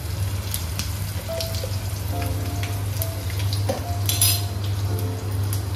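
Green chillies frying in hot oil in a small pan for a mustard-seed tempering: a steady sizzle scattered with small pops and crackles, with a short sharper burst of sizzle about four seconds in.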